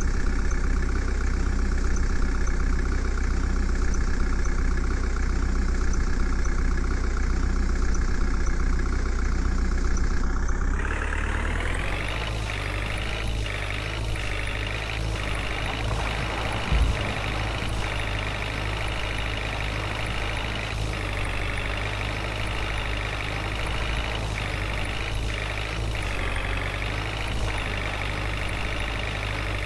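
Heavy diesel engine running steadily. About eleven seconds in the sound shifts to a brighter, slightly quieter engine note, with a short thump later on.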